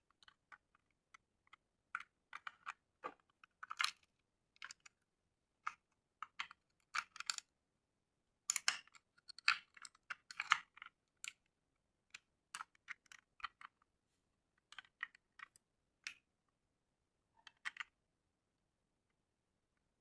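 Faint, irregular clicks and rattles of a 35 mm film camera's mechanism being worked as film is loaded and wound forward over the sprocket wheel, with short pauses between groups of clicks.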